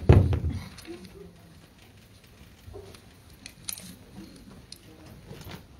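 Sheets of paper and notes being gathered up at a pulpit microphone: a loud bump and rustle right at the start, then faint rustling and small knocks.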